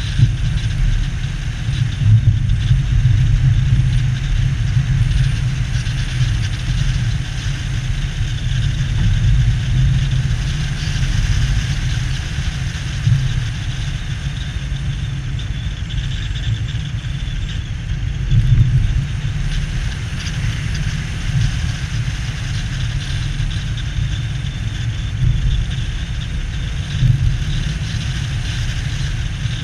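A car driving along city streets: a steady low rumble of engine and road noise.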